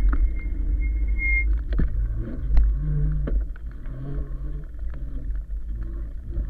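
Riding noise of a 1000-watt e-bike: steady wind rumble on the microphone and road noise, with scattered knocks and rattles from bumps. A thin high whine stops about a second and a half in, and a low hum comes and goes in the second half.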